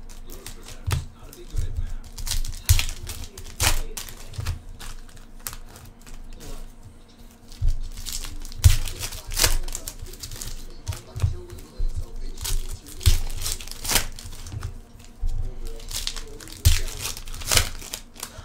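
Trading card packs being torn open: wrappers crinkling and ripping in irregular crackles and rustles, with cards being handled.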